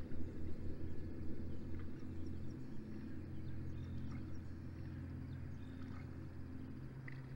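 Low, steady engine drone of a distant boat motor, its pitch shifting about a third of the way in and again near the end, with faint scattered bird chirps above it.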